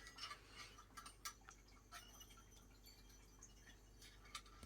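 Near silence with a wind chime tinkling faintly now and then, a few light irregular tings, most of them in the first two seconds.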